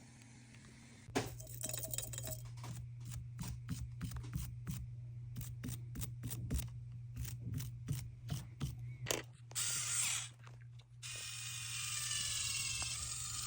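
Small hand tools clicking and scraping against an iPhone's body and glass, in quick irregular strokes, over a steady low hum. About eleven seconds in the clicking stops and a steady hiss takes over.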